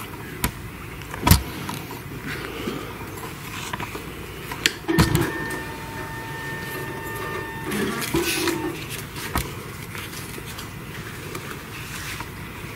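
Room noise with a few sharp knocks and rustles, and a steady electric whine lasting about three seconds midway.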